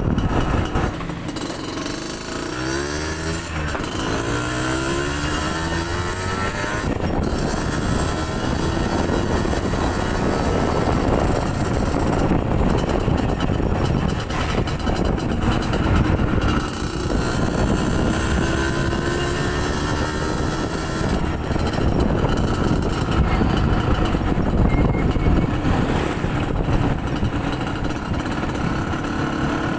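Yamaha DT125's two-stroke single-cylinder engine on a test ride, its pitch climbing a few seconds in as it accelerates through the gears. Heavy wind noise rushes over the microphone throughout.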